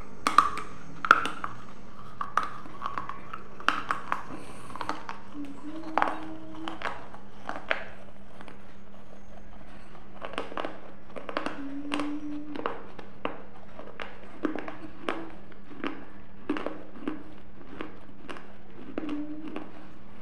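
Close-miked mouth sounds: a steady string of sharp lip smacks and mouth clicks, a few every second, with brief low hums between them. The loudest clicks come in the first second or so, with a clay diya pressed to the lips.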